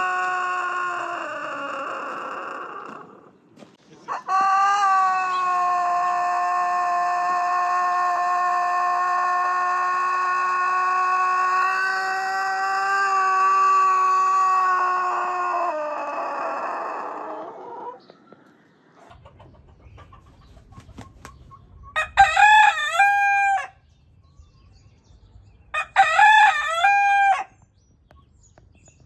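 Bosnian Longcrower rooster crowing. One crow fades out a few seconds in, and a single very long crow follows, held steady for about fourteen seconds before it trails off. Then a Drentse Hoen (Drenthe fowl) rooster gives two short crows about four seconds apart.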